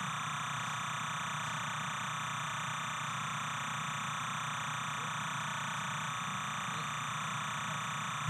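Steady hiss and hum that does not change, with no distinct event standing out.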